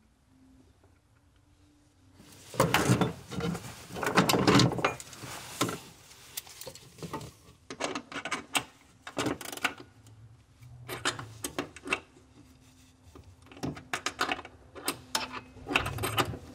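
Metal hand tools, a wrench and pliers, clicking, scraping and knocking on the Suzuki Samurai's accelerator pedal arm and throttle cable fitting as the cable end is worked on. Quiet for about two seconds, then a busy run of clicks and rattles, followed by scattered clicks.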